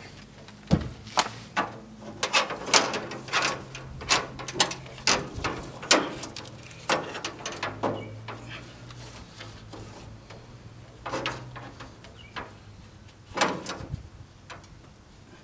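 Irregular metallic clicks, taps and clanks as a steel bandsaw blade is handled and fitted over the wheels inside a portable sawmill's blade housing, busiest in the first half and again near the end.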